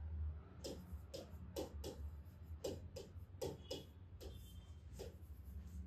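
Stylus tapping and sliding on the glass of an interactive touchscreen display as handwriting is put on it: a run of faint, irregular clicks, about two or three a second, over a low steady hum.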